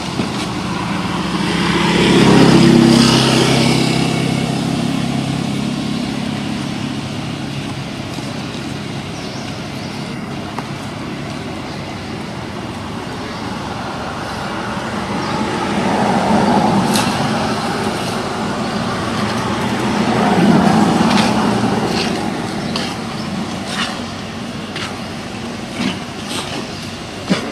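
Road traffic passing, a steady rumble that swells as vehicles go by, loudest about two to four seconds in and again twice past the middle. A few sharp clicks near the end.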